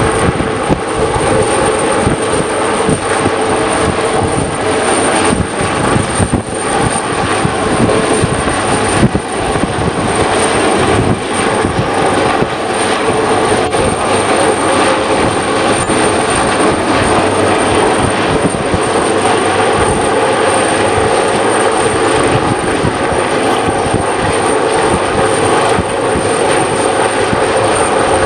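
Coastguard search-and-rescue helicopter hovering low over the sea: its rotor and turbine engines run steadily and loudly, with a thin high whine over them.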